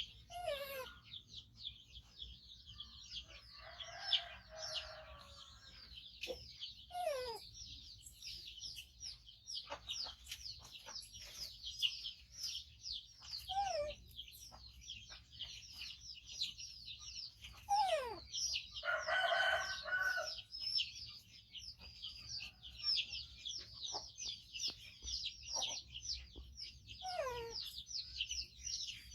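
High-pitched animal calls: rapid chirping goes on throughout, broken by several short falling squeals and two louder, harsher calls about 4 and 19 seconds in.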